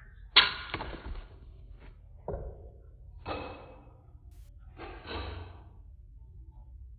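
Hard plastic knocking and clattering, as of Lego pieces being handled. A sharp knock comes about half a second in, followed by three shorter rattling clatters.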